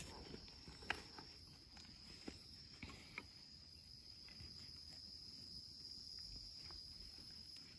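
A faint, steady, high-pitched insect drone, with a few faint small clicks in the first three seconds.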